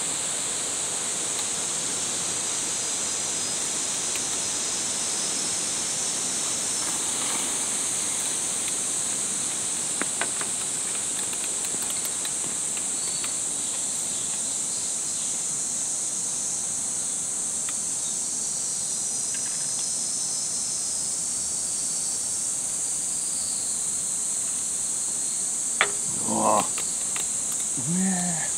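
Steady, high-pitched chorus of insects shrilling. Near the end there is a sharp click and a couple of short, lower sounds.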